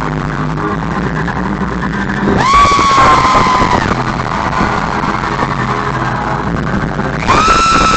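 Live rock band playing loud, distorted and crowded in a venue. About two seconds in, a high wailing note swoops up, holds for a second or so and sags away. A second long high note starts near the end and holds steady.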